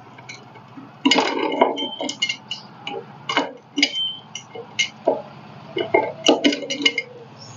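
Irregular metallic clinks and rattles from the clutch chain and sprocket of a VST Shakti 130 DI power tiller as the splined clutch shaft is turned by hand to bring the chain's lock link into position. Some of the clinks ring briefly.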